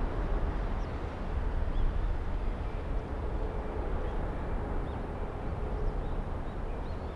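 Steady low rumble of jet aircraft engines with a faint steady hum, and a few small bird chirps above it.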